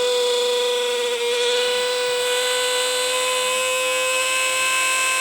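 Electric mixer grinder's motor running with a steady whine that holds one pitch, a fault noise. The owner traces it to the motor's bushings having run dry.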